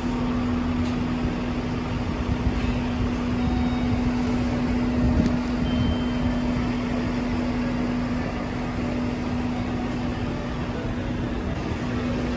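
Steady mechanical hum on a railway station platform, with one constant low tone over an even rumble.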